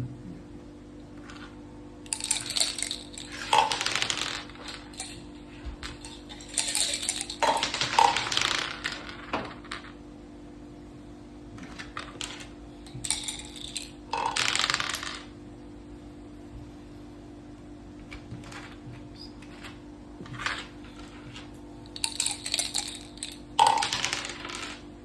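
Dice and playing pieces clattering on a mak saka (Thai backgammon) board, in about four short bursts of clicks and rattles, over a steady low hum.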